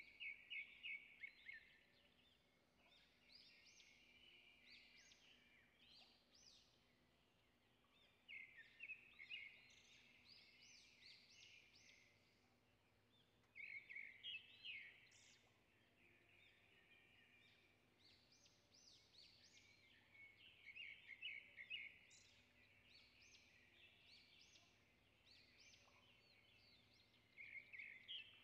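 Faint songbird chirping in short bursts of rapid, high notes, five or so bursts a few seconds apart, over near silence.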